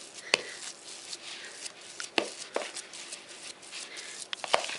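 Metal spoon stirring a thick cottage-cheese dough in a plastic bowl: soft scraping, with a few sharp clicks where the spoon knocks against the bowl.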